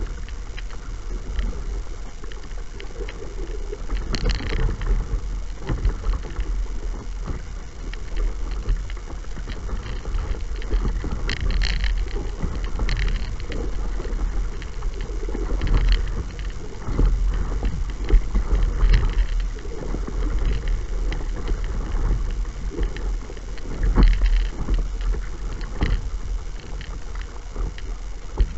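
Water splashing and lapping against the bow of a paddled kayak or board, with a splash every few seconds, over a steady low rumble of wind on the microphone.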